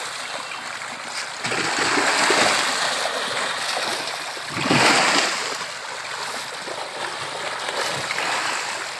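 Dense school of tilapia splashing and churning at the pond surface as they snatch floating feed pellets, a continuous wet slapping, with one louder splash about five seconds in.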